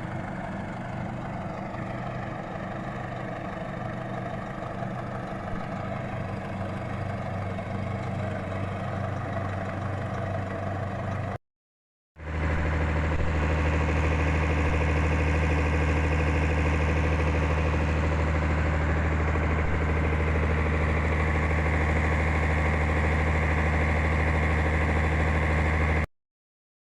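An engine running at a steady speed. It cuts off about eleven seconds in, comes back louder a second later, and stops sharply near the end.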